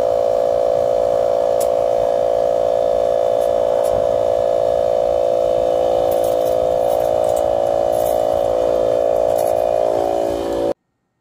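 Battery-powered 2.5-gallon portable air compressor running with a loud, steady motor hum while it pumps its tank up to pressure for inflating truck tyres. The hum cuts off abruptly near the end.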